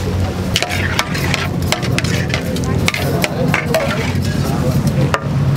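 Long-handled metal spatula scraping and knocking irregularly against a giant wok as goat meat is stirred in a simmering, sizzling spiced sauce, over a steady low hum.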